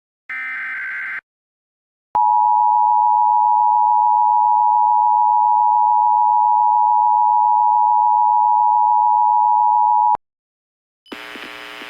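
Emergency Alert System alert opening. In the first second a short burst of SAME header data tones plays. After a brief gap comes the EAS two-tone attention signal (853 and 960 Hz), a loud steady tone held for about eight seconds that cuts off sharply. Near the end a low hum comes in ahead of the broadcast message.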